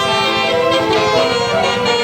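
Indonesian 'telolet' basuri multi-tone bus horn playing a melody, its notes stepping up and down every fraction of a second.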